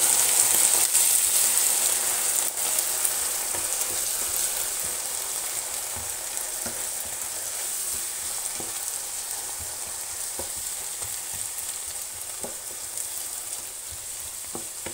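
Onions and walnuts sizzling in oil in a frying pan just after white wine is poured in, the sizzle slowly dying down as the wine cooks off. A wooden spoon stirs and knocks lightly against the pan every second or two.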